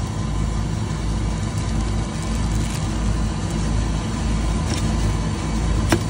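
Steady low rumble of running machinery, with a faint steady high tone over it and one sharp click near the end.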